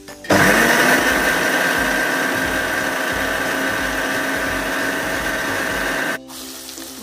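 Daksh electric mixer grinder running, grinding tomato pieces to a paste in its steel jar. The motor spins up with a rising whine just after the start, runs loud and steady, and cuts off sharply about six seconds in.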